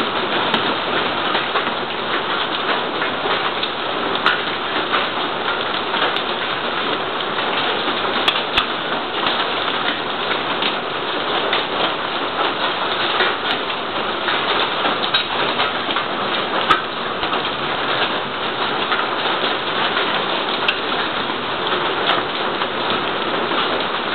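Heavy rain pouring down in a steady hiss, with scattered sharp ticks of impacts on hard surfaces.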